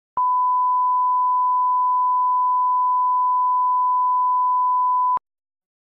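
Steady 1 kHz line-up test tone played over colour bars, one unbroken pure tone about five seconds long that starts and stops abruptly with a click.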